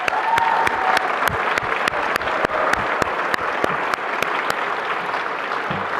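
Audience applauding: dense, steady clapping with some sharp individual claps standing out, easing off slightly near the end.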